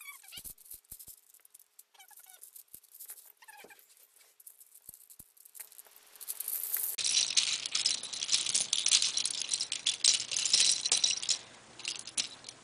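Plastic pieces of a V-Cube 5 speed cube clicking and rattling as the puzzle is turned and its loosened pieces are worked out. Light, scattered clicks at first, then a louder, dense clatter from about seven seconds in.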